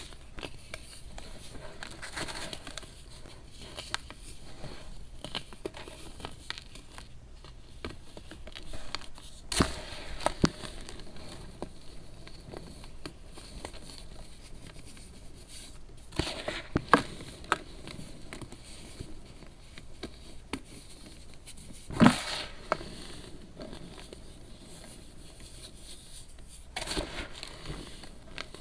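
Crunchy pressed baking soda being crushed and crumbled: soft crackling throughout, with a few sharper crunching cracks, the loudest about two-thirds of the way in.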